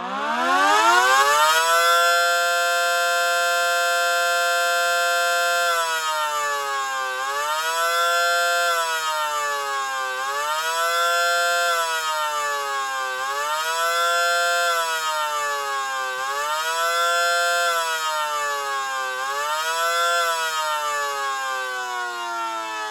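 FCM mechanical siren sounding its fast wail signal on radio activation. It spins up to full pitch over about two seconds and holds, then its pitch dips and climbs back about every three seconds, five times. Near the end it winds steadily down.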